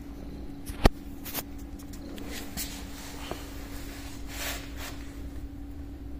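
Quiet room with a steady low hum, a single sharp click about a second in, and a few soft, brief brushing sounds as a cat shifts and rolls on a tiled floor.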